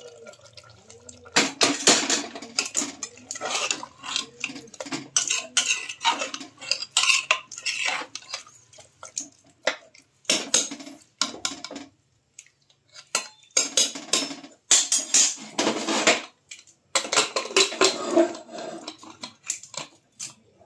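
A steel ladle stirring a watery meat curry in an aluminium pressure cooker, clattering and scraping against the pot's sides in quick runs of knocks with short pauses between.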